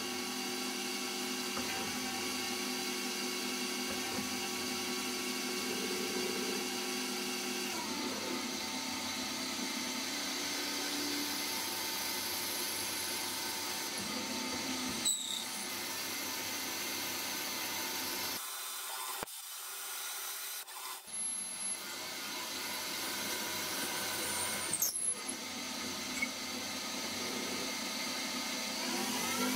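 CNC lathe machining brass bar stock: the spindle and drive motors whine with several steady tones while the tools turn and drill the part. The whine changes pitch as the spindle speed changes, drops away briefly about two-thirds of the way through, and rises again near the end.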